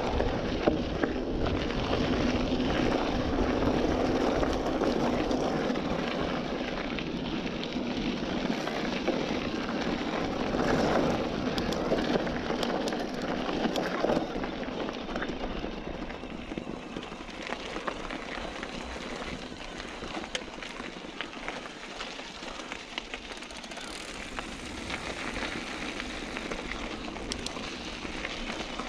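Wind rushing over the microphone with rolling tyre noise and scattered small clicks from a bike ride, loudest in the first half and easing off after about fifteen seconds.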